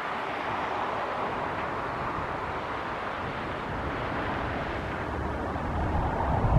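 ED2T electric multiple-unit train rolling into the station: a steady rumble and hiss of wheels on rail. Near the end a short low buffeting burst hits the microphone.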